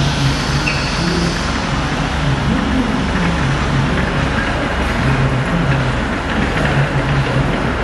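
Service truck's hydraulic side-door system running as the gull-wing panel lowers: a steady mechanical running noise with a low hum that pulses on and off.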